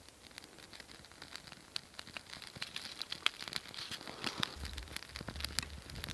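Birch bark tinder catching in a small stick campfire, crackling with many small sharp pops. A low rumble comes in about two-thirds of the way through.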